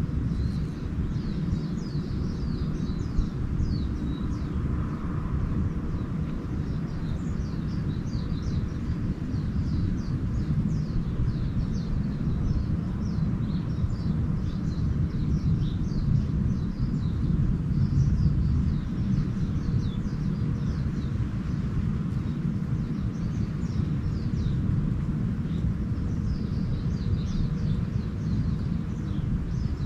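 Small birds chirping and twittering many times throughout, over a steady low rumble.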